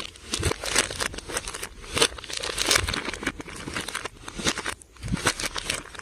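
Slime being mixed and squished, a dense, irregular run of sticky crackles and pops.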